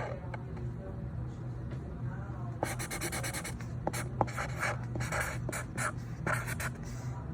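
Handwriting on paper: a run of quick, scratchy strokes starting about a third of the way in, over a steady low hum.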